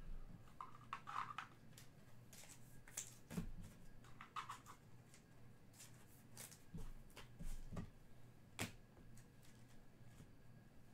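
Faint, scattered clicks and brief rustles of trading cards and card packs being handled, over a low room hum.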